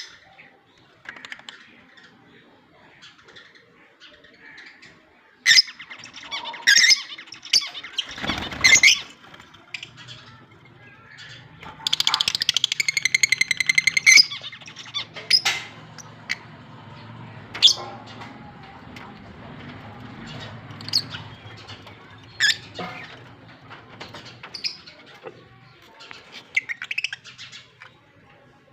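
Fischer's lovebirds calling with scattered sharp, high chirps and squawks. About twelve seconds in, a bird gives a rapid, buzzy chattering call lasting about two seconds.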